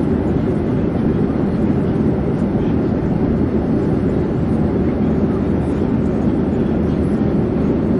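Airplane in flight: a steady, even rumble, deepest and strongest in the low range, with no change in pitch or loudness.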